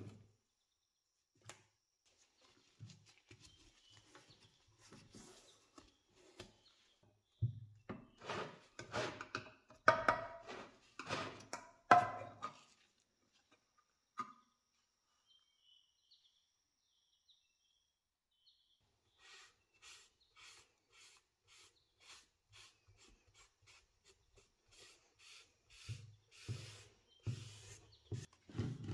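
Sharp clicks and scrapes with a slight metallic ring as the lid of a metal can of wood stain is pried off with a screwdriver. Later a cloth rubs stain onto a wooden box in quick, even strokes, about two a second.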